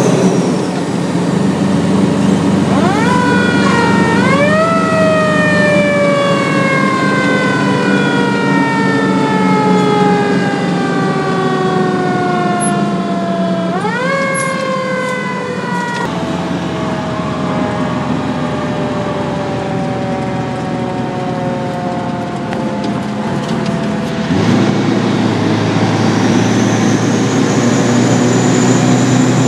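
Fire engine's Federal Q mechanical siren, heard from inside the cab. It winds up twice, about 3 s and 14 s in, and each time coasts slowly down in pitch. Under it the truck's engine runs with a steady drone that grows louder about 24 s in as the engine pulls harder.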